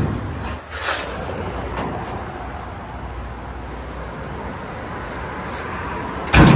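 Steady low rumble of workshop background noise, with a loud sudden clunk near the end as the classic pickup's steel cab door is swung shut.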